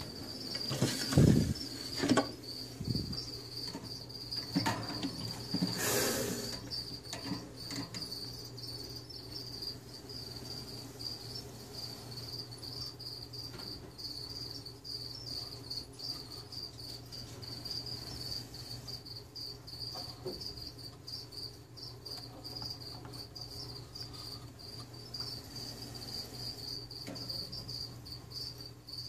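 A cricket chirping in a continuous high, even trill, with a low steady hum under it. In the first six seconds a few knocks and bumps sound over it.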